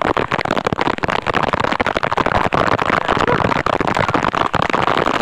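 Heavy rain, a dense continuous crackle of drops falling close to the microphone.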